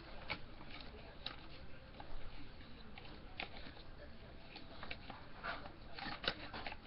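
Faint scattered clicks and scratchy strokes of crayons being handled and drawn on paper.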